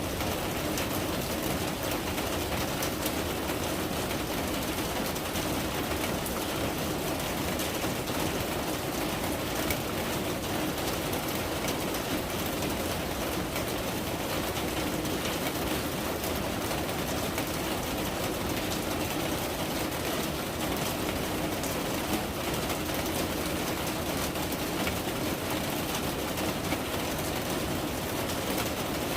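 Steady rain, heard as an even hiss.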